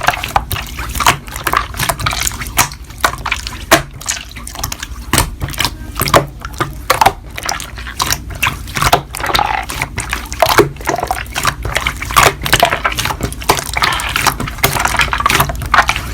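Slime being squished and worked, giving a dense, irregular run of wet clicks and pops.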